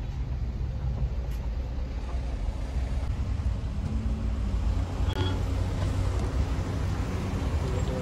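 Maruti Wagon R car driving along, a steady low rumble of engine and road noise.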